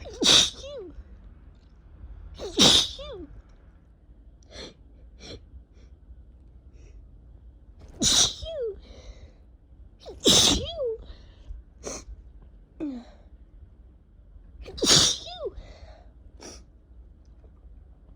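A person sneezing five times in a fit, loudly, each sneeze a sudden blast ending in a short falling voiced tail, with a few fainter short sounds between them. The sneezer puts it down to spring allergies.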